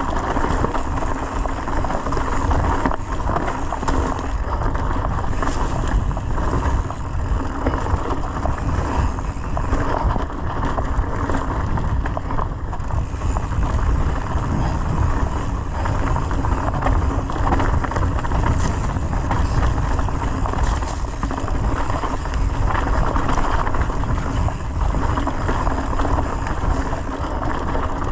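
Wind rushing over the microphone of a handlebar-mounted camera on a mountain bike riding a dirt singletrack, mixed with tyre noise on the dirt and small knocks and rattles from the bike over bumps.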